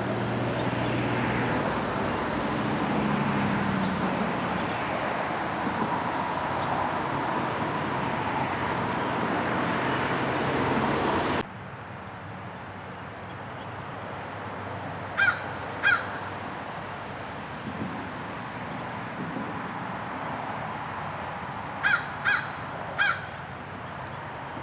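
A steady rushing background noise, which cuts off sharply about halfway through to a quieter background. Against that come short harsh crow caws: two in quick succession, then three more near the end.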